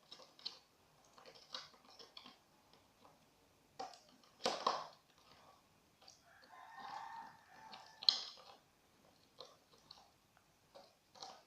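Small spoon scooping and scraping a slime mixture in its container: scattered soft clicks and scrapes, the loudest about four and a half seconds in and another sharp one about eight seconds in.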